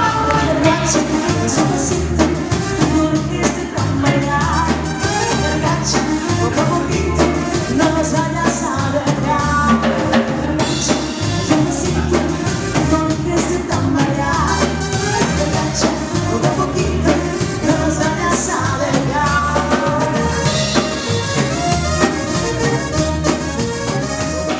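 A band playing upbeat dance music with a drum kit keeping a steady beat and a singer's voice over it.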